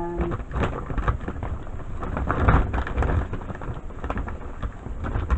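A big shopping bag rustling and crinkling as items are rummaged through inside it, with dull bumps of things being moved.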